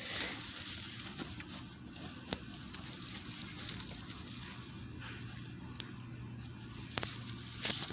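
Hands digging through loose potting soil in a potato grow bag: a steady soft rustling and crumbling, with a few light clicks.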